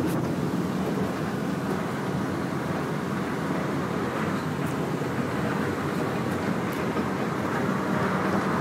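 Disneyland Mark VII monorail running at speed, heard from inside its open rear car: a steady rushing rumble of its rubber tyres on the concrete beam mixed with air streaming past the open side.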